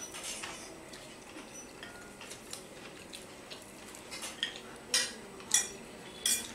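Forks and spoons clinking and scraping against plates and bowls as people eat, with three louder, ringing clinks in the last second and a half.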